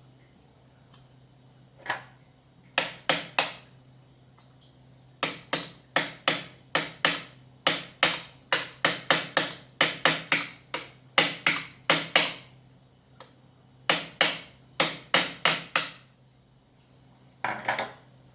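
Repeated hard knocks of a tool striking, like hammering, about three a second in runs of several blows with short pauses between the runs.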